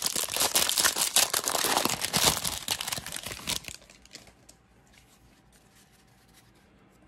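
Foil wrapper of a baseball card pack crinkling as it is torn open by hand, for about three and a half seconds. Then only faint soft ticks as the cards are handled.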